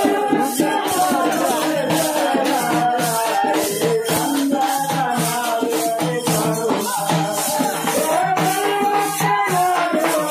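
Music: a steady rhythm of shaken rattles or jingles under a wavering melody line.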